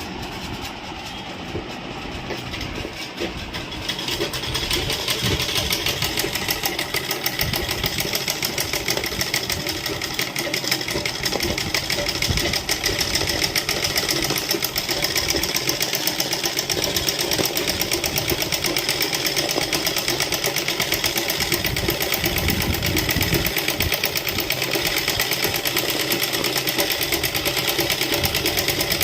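Domestic sewing machine running for free-motion embroidery, the needle stitching in a fast, even rattle. It picks up speed and gets louder about four seconds in, then runs steadily.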